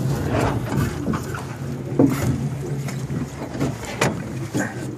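A boat under way on a river: a steady low hum under water and wind noise, with a few short knocks against the hull.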